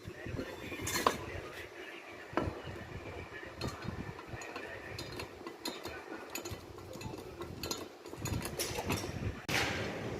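Scattered light metallic clinks and knocks of tools and metal parts being handled, with a sharper click about a second in and a louder noisy stretch near the end.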